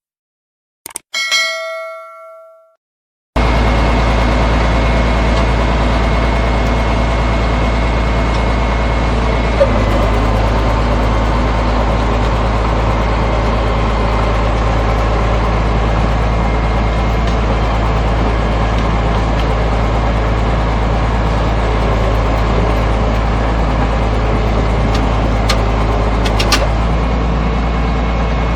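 A click and a short ringing ding, then the diesel engine of a Caterpillar D6C bulldozer running steadily with a deep rumble, cutting in suddenly about three seconds in.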